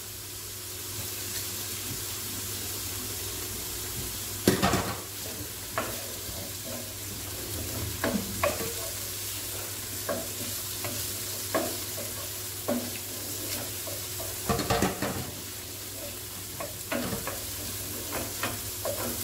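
Chicken, onion and garlic frying in oil in a nonstick frying pan, a steady sizzle, while a wooden spatula stirs and scrapes, knocking irregularly against the pan. The loudest knocks come about four seconds in and again near fifteen seconds.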